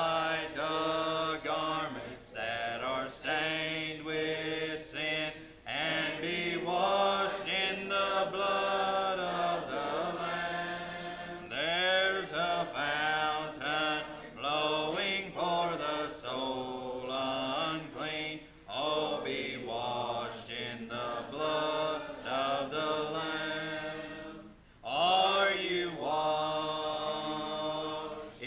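A congregation singing a hymn a cappella, many voices together holding long notes, with a short break between lines about twenty-four seconds in.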